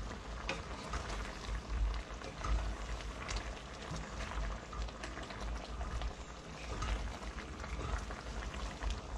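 Chicken curry in coconut milk simmering in a frying pan, a steady bubbling with many small pops, while a wooden spatula stirs it and scrapes the pan.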